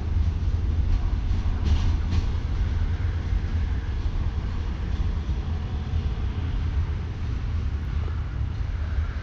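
SRT GEA-class diesel-electric locomotives at the head of a freight train, running with a steady deep rumble. Two short clanks come about two seconds in.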